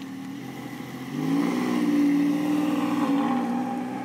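Porsche 996 911 Carrera 4S flat-six with a sport exhaust, revving up about a second in and then holding a loud, steady note that eases off near the end.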